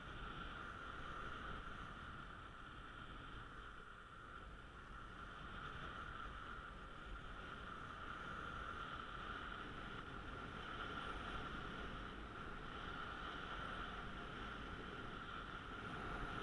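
Steady rushing noise of skiing downhill: skis sliding over groomed snow, with wind over the helmet camera's microphone.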